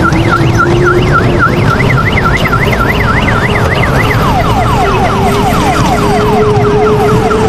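Electronic toy siren sound: a fast up-and-down yelp, about four sweeps a second, that changes about four seconds in to a repeated falling wail, about three sweeps a second. Underneath runs a steady low tone and rumble.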